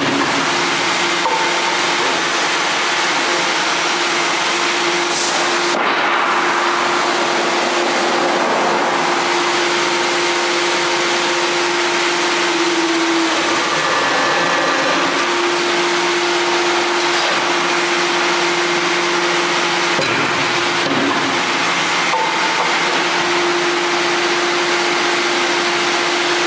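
A 315-ton hydraulic press's pump unit running steadily with a constant-pitch whine over a loud mechanical hiss. The sound shifts briefly about six seconds in and again near twenty seconds as the press cycles.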